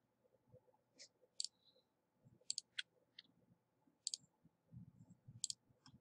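Faint computer mouse button clicks, about nine at irregular intervals, some in quick succession.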